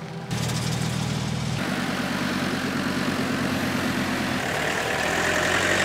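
Heavy vehicle engine running steadily with a low hum, the sound shifting abruptly a few times.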